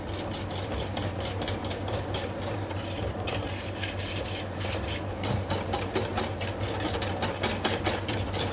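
Wire balloon whisk beating egg yolks, sugar and hot milk in a stainless steel bowl: a fast, even run of wire-on-metal clicks as the yolks are tempered for a crème anglaise. A steady low hum lies underneath.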